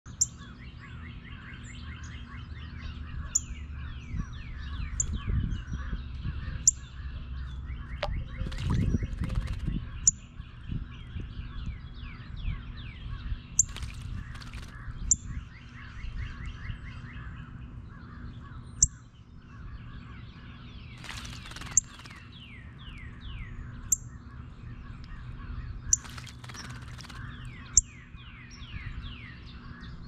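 Several backyard songbirds calling and singing together, with a sharp high chip repeating every one to three seconds over runs of quick falling chirps and a steady low hum.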